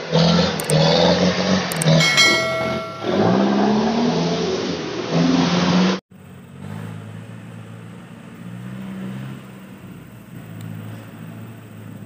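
Mitsubishi Canter dump truck's diesel engine revving under load in mud, its pitch rising and falling. About six seconds in the sound cuts to the same engine, much quieter and steadier, from the truck far down the track.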